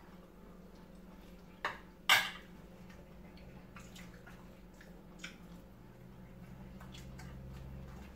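Two sharp clinks of something hard against the serving dish about two seconds in, the second the loudest, then fainter clicks as hands pick food from the platter.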